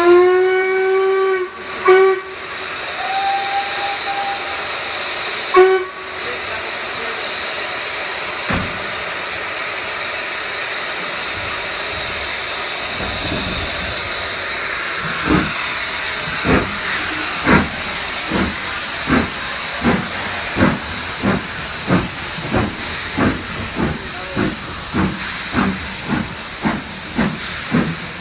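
A steam locomotive's whistle sounds in several short blasts, then steam hisses steadily. The Stanier Black 5 then starts away with its train, its exhaust beats coming in about halfway through and quickening from about one a second to about two a second.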